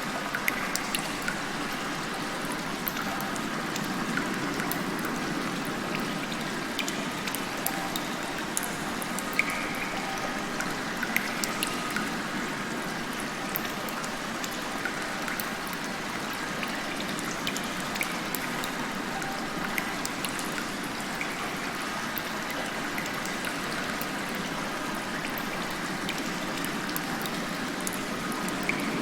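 Rain heard from inside a cave: a steady wash of falling water and trickling runoff, with many individual drops splashing sharply close by.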